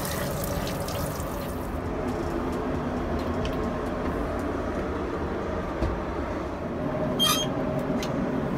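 Water from the aircraft lavatory tap runs into the basin and stops within about the first second, over the steady drone of the Boeing 777-300ER cabin in flight. About seven seconds in, a lavatory panel latch gives a short, sharp click.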